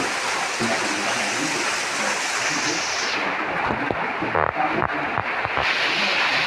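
Steady rush of water running and splashing in a rock-and-aquarium water feature, with a few short knocks about four to five seconds in.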